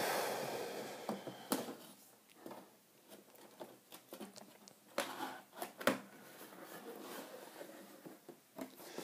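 Rustling and scraping as a large cardboard box is handled and unpacked, with a few sharp knocks, the loudest about six seconds in.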